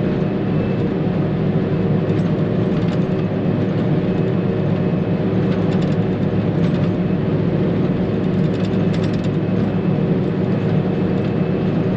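Forage harvester running steadily under load while chopping silage: a constant, loud machine drone.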